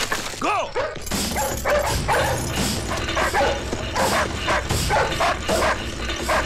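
Dogs barking fast and without a break, about three barks a second, after a short whine about half a second in.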